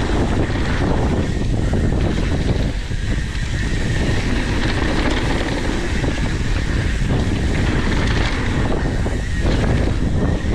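Mountain bike riding down a trail: steady wind buffeting the microphone over the rumble and rattle of the bike on the dirt.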